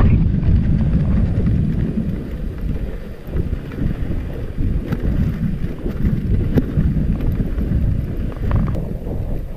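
Rumbling wind noise on the microphone of a camera riding a moving dog sled, mixed with the sled's runners sliding over packed snow, and a few brief knocks from bumps in the trail.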